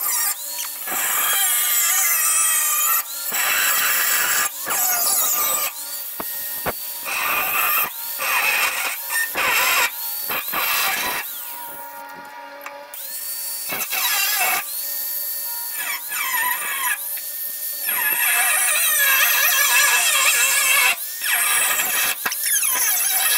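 A cut-off wheel slicing through the rusty sheet-steel tail panel of a 1989 Chevy K5 Blazer, a high-pitched whine and grinding in a series of short cuts. The wheel winds up in pitch each time the cut restarts.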